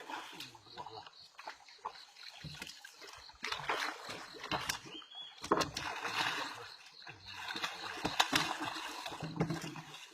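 Water splashing and sloshing in uneven bursts, with several sharp, loud splashes spread through.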